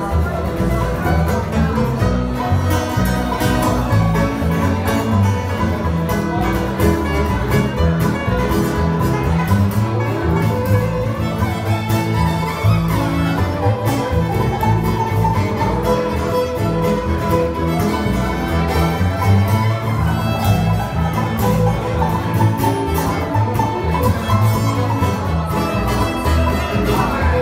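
Bluegrass band playing live with no singing: fiddle to the fore over banjo, acoustic guitar and upright bass keeping a steady beat.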